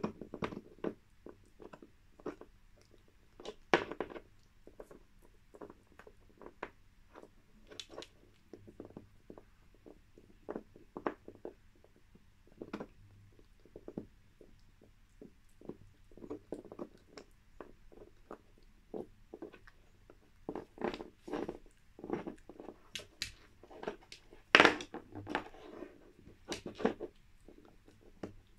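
A schnauzer gnawing a deer antler chew held between her front paws: irregular clicks and scrapes of teeth on hard antler, with a few louder knocks, the loudest about three-quarters of the way through.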